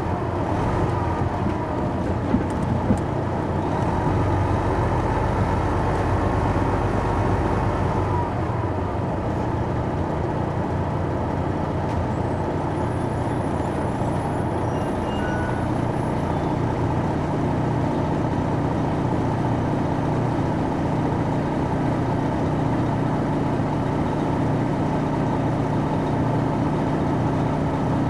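Interior sound of an MCI D4000 coach's Detroit Diesel Series 60 engine and Allison B500 drivetrain. For about the first eight seconds a heavier rumble carries a whine that glides in pitch, with two short clicks a couple of seconds in. The rest is a steady, even drone.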